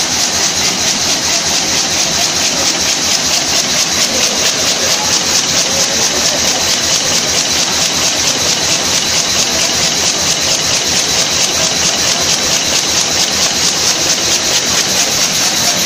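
Weaving looms running: a steady, fast, even mechanical clatter over a loud hiss.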